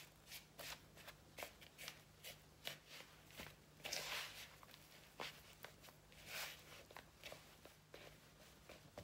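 Fingers mixing and squeezing crumbly scone dough in a mixing bowl: faint, irregular soft rustling and squishing, with two longer scraping swishes about four and six and a half seconds in.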